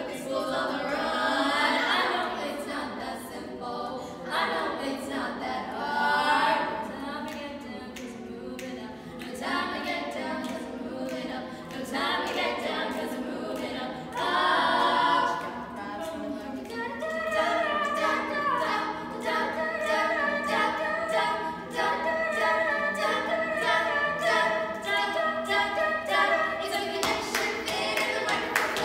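Female high-school a cappella group of five singing in harmony, with a steady percussive beat running underneath.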